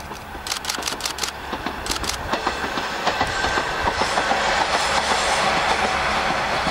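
Two-car diesel railcar passing close by, its wheels clattering over the rails in a swelling rumble that peaks about five seconds in and then starts to fade. A quick run of sharp clicks comes in the first two seconds.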